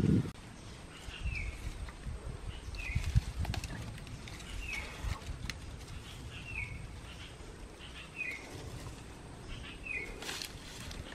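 A bird repeating a short, falling call about every second and a half to two seconds, six times, over soft rustling and knocks.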